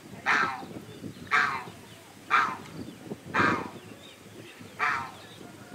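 Guinea fowl calling, a short harsh call repeated five times at about one a second.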